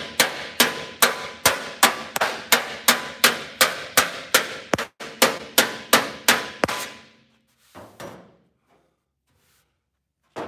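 Spoon hammer slapping a sheet-metal car fender in quick, even blows, about three a second, knocking down a high spot in the panel. The blows stop about two-thirds of the way through, leaving only a couple of faint knocks.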